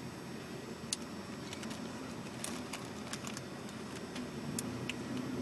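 Quiet background hiss with a few faint, scattered small clicks.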